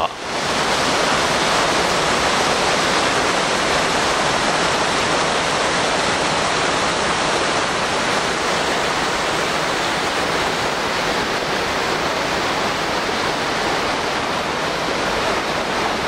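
Steady rushing of water from a waterfall and the rocky mountain stream tumbling over boulders below it.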